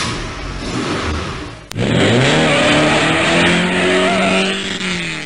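Car engine sounds: a loud rushing hiss for about the first second and a half, then a sharp click and an engine revving up and holding a steady note.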